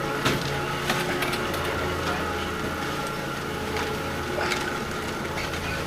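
Chairlift machinery humming steadily, with scattered light clicks and knocks.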